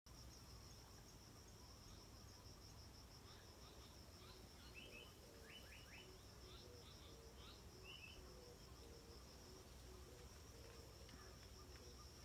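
Faint, steady high-pitched insect trill of rapid, even pulses, with a few short high chirps in the middle.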